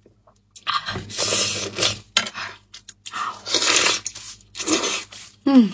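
Close-up eating sounds of a person biting, tearing and chewing lamb jaw meat in four separate bursts, ending with a short voiced sound.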